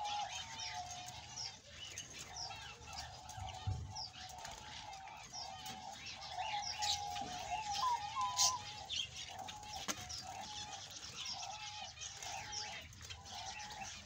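Budgerigars chirping and warbling: a steady run of short high chirps over a continuous, wavering lower warble.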